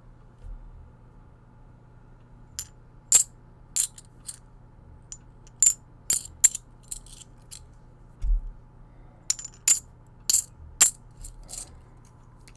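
Modern copper-nickel clad half dollars dropped one after another onto a surface, a string of sharp clinks with a brief high ring as they land and bounce. A dull low thump about halfway through.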